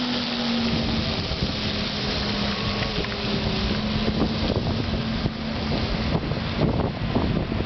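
ZiU-9 trolleybuses running on the street, with a steady electrical hum throughout. Heavy wind buffets the microphone from about a second in.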